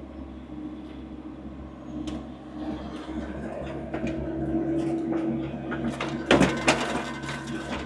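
Skid steer running under load while working its bucket in mud: a steady engine drone with a hydraulic tone that builds over a couple of seconds, then a few sharp clunks about six seconds in.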